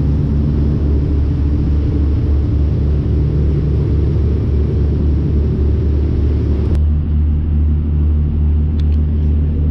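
Riverboat's diesel engine running steadily, a loud low rumble heard on board the moving boat. A sharp click comes about seven seconds in.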